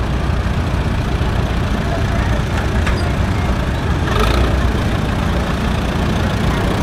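Allis-Chalmers WD tractor's four-cylinder engine running steadily at low speed, with a brief rush of noise about four seconds in.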